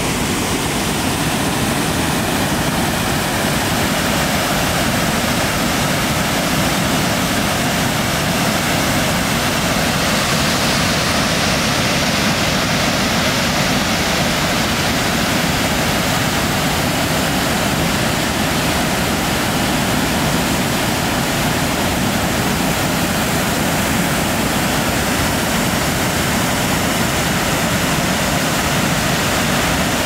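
Jiktang Falls, a wide, low curtain waterfall, pouring over its rock ledge: a steady, loud rush of falling water.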